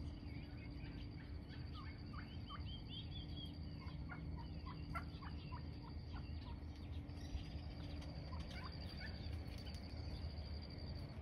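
A flock of wild turkeys, hens with young birds, giving many short, high calls, faint and scattered, over a steady low hum and a steady high trill.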